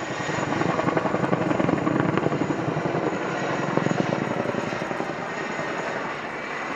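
Boeing Chinook HC6A tandem-rotor helicopter passing close overhead, its two contra-rotating rotors beating in a fast, even pulsing. The sound grows louder in the first second, holds strongest through the middle, then eases a little.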